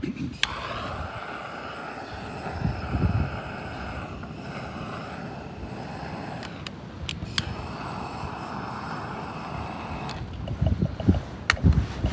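Homemade waste-oil burner running with a steady rushing noise, with a few sharp clicks and low rumbling gusts near the end.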